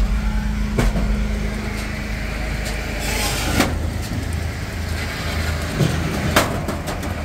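Diesel engine of a Hitachi ZW50 compact wheel loader running steadily, heard from its cab. About three seconds in there is a short rush of noise as the cab door is opened, and a few sharp clicks stand out over the engine.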